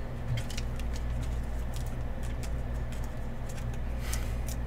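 Trading cards and clear plastic card sleeves being handled: scattered light clicks and rustles, a louder plastic rustle about four seconds in, over a steady low hum.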